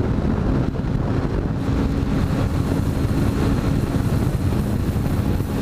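Motorcycle at highway speed: heavy wind rush on the microphone over the steady drone of the engine.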